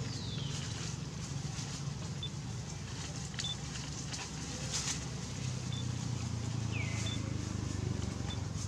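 Outdoor background with a steady low rumble, a few short high chirps, and two brief falling calls: one at the start and one about seven seconds in.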